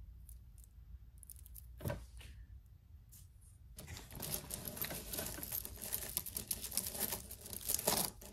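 Bead and faux pearl necklaces clicking and rattling against each other as hands rummage through a pile of costume jewelry. There are a few scattered clicks and a single knock at first, then a dense, continuous clatter from about four seconds in.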